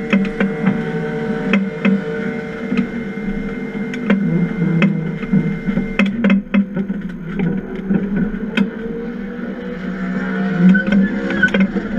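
Stock car race car's engine idling steadily, heard from inside the cockpit, with scattered clicks and knocks throughout.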